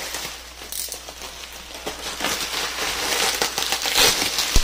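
Bubble wrap crinkling and crackling as hands pull it open, with one sharp click near the end.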